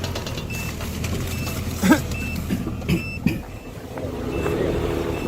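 A vehicle engine runs steadily as the vehicle sets off. A short high beep repeats about every three-quarters of a second, and a few brief louder sounds come in the middle.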